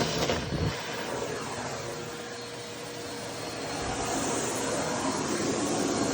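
Vacuum cleaner running with a steady rush of air as it sucks up cut-out pieces of a shirt. It dips slightly in the middle and grows louder again from about four seconds in.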